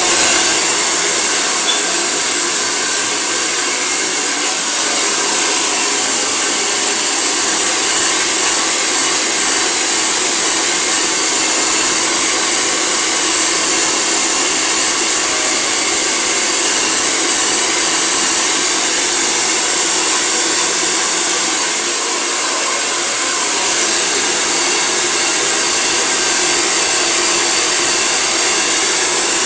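Handheld hair dryer running steadily, a loud rush of air with a high whine, blowing on wet hair being dried.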